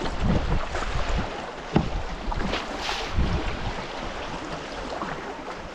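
Rushing whitewater of a river rapid around a kayak, with a few sharp splashes. Wind buffets the microphone.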